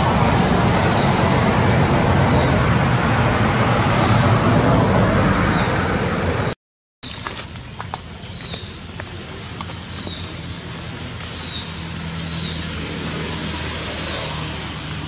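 Loud, steady outdoor background noise, cut off about halfway by an edit and followed by a quieter background with faint short high chirps repeating about once a second.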